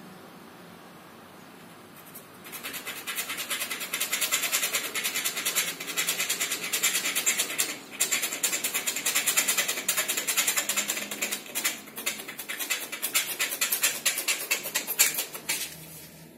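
A firesteel (打火石) rod being scraped rapidly and over and over with a striker to throw sparks onto tinder, a fast run of rasping strokes. It starts about two seconds in, breaks off briefly near the middle, then carries on; the tinder has not yet caught.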